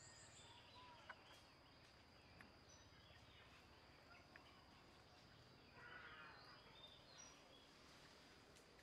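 Near silence: faint outdoor ambience with scattered bird chirps and a steady high hum, and a brief raspy chirping about six seconds in.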